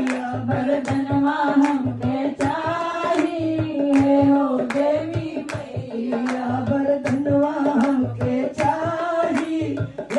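Women's voices singing a Bhojpuri devotional bhajan to the goddess into microphones, over steady hand claps about two to three a second and a low drum keeping the beat.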